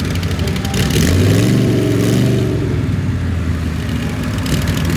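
Vehicle engine with a misfire, revved once about a second in and dropping back to idle.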